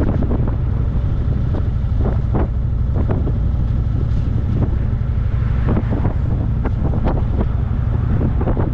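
Wind buffeting the microphone of a moving car, a steady low rumble with frequent short knocks through it.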